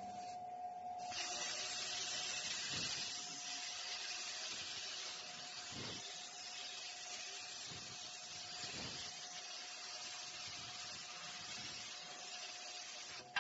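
Cutting torch on a CNC combination plasma cutting machine hissing steadily as it cuts, starting about a second in, over a steady high whine.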